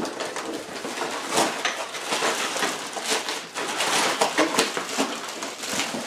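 Cardboard and clear plastic packaging rustling and crinkling in irregular bursts as a kick drum pedal is lifted out of its box and unwrapped.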